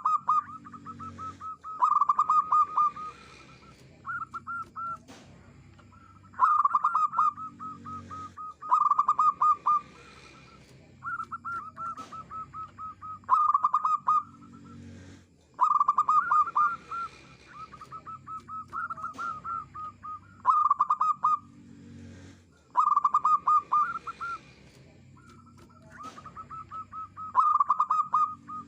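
Zebra dove singing its staccato cooing song: phrases of quick, stuttering notes, each a second or two long, repeated every couple of seconds.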